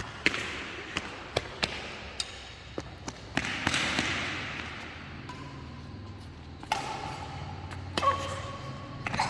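Badminton rally: racket strings sharply hitting a shuttlecock, several quick hits in the first few seconds and a couple more near the end, over a steady hiss of rain.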